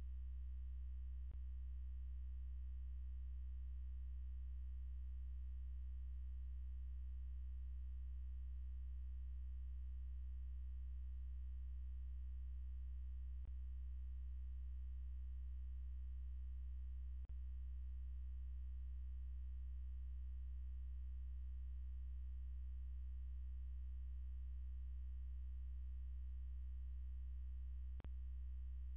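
Steady low electrical hum with a stack of even overtones, unchanging throughout, broken only by four faint clicks.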